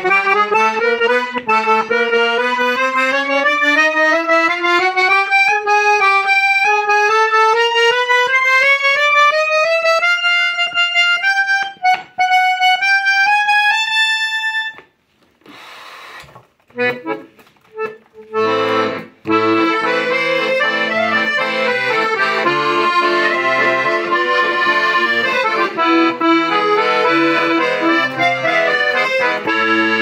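Hohner Atlantic IV de Luxe piano accordion. In the first half, a single line of notes climbs slowly on the treble keyboard. After a short pause about halfway, bass buttons and chords are played together.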